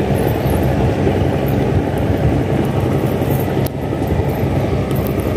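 Small boat engine running steadily at an even speed with a low, unchanging drone.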